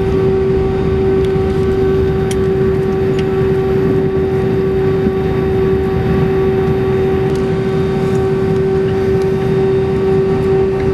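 Steady cabin noise inside an Airbus A319 on the ground: the engines running at low power under a constant high hum and a dense low rumble. Nothing rises or changes.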